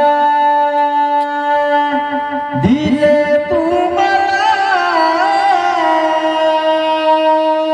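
Singing: a voice holds long, drawn-out notes with wavering ornaments over steady sustained accompanying tones. A fresh phrase starts a little under three seconds in.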